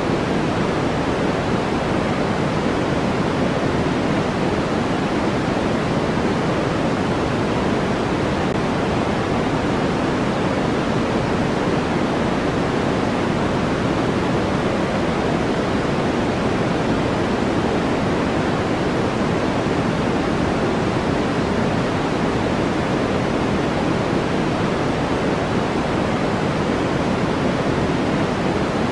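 Steady white noise for sleep: an even, unchanging rushing hiss, fuller in the low and middle range than in the treble.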